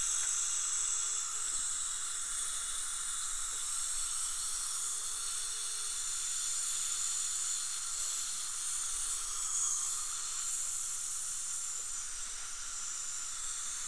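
Dental drill running steadily with a hiss of air and water spray as its burr cleans decay out of the inside of a molar.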